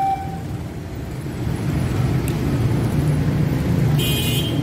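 Slow road traffic of motorcycles and cars, engines running and growing louder. About four seconds in there is a short high-pitched tone, and a second one follows straight after.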